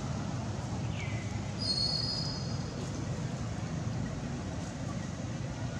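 A young macaque gives a brief high-pitched squeal about two seconds in, preceded by a short falling squeak, over a steady low outdoor rumble.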